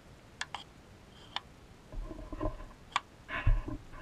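Small sharp clicks and light knocks of a metal axle rod and black toy truck wheels being handled and fitted together, with a dull thump near the end as the wheeled axle is set down on the bench.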